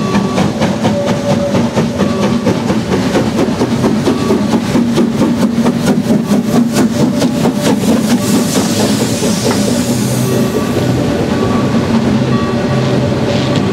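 Harz narrow-gauge 2-10-2T steam tank locomotive passing close under power, with quick, even exhaust beats and the hiss of steam from its open cylinder drain cocks. After about eight seconds the beats give way to its coaches rolling past over the rail joints.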